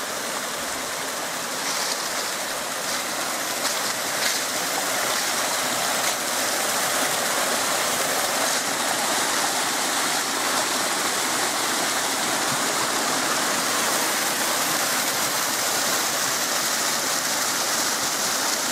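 Small stream cascading down over rocks, a steady rush of falling water that grows a little louder about six seconds in.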